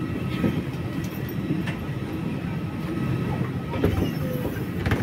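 Steady rumble and hum of an Airbus A320 cabin's ventilation on the ground, with a couple of sharp knocks near the end as bags are stowed in the overhead bins.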